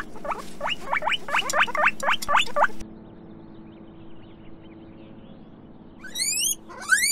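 Guinea pigs squeaking: a rapid run of short rising squeaks over the first three seconds, then, after a pause, two longer rising whistle-like squeals (wheeks) near the end.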